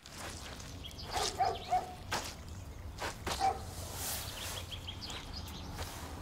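Boots stepping through wet concrete, squelching footfalls, with a few short animal calls and birds chirping.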